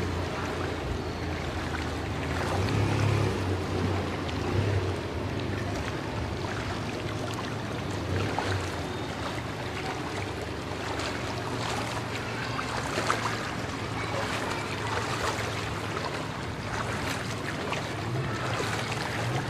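Floodwater sloshing and splashing around the legs of someone wading along a flooded street, in a steady wash with frequent small splashes and a low steady hum underneath, strongest in the first few seconds.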